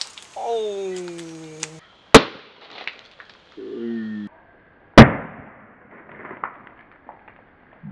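Sharp whacks of a bamboo axe chopping down onto a bag of potato chips on a wooden stump, about two seconds in and again, loudest, about five seconds in, when the bag is hit and the chips scatter.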